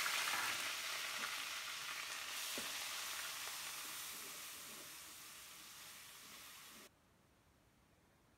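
Chopped onion hitting hot oil in a metal kadai and sizzling, stirred with a steel ladle with a few light scrapes. The sizzle starts suddenly and loud, fades gradually as the onion cooks, and cuts off abruptly about seven seconds in.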